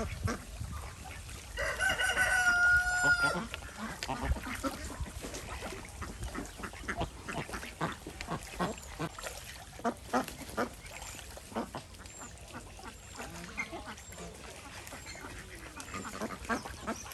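Domestic ducks splashing and bathing in a shallow pool, wings and bills slapping the water, with scattered quacks. About two seconds in, a rooster crows once, the loudest sound, lasting about a second and a half.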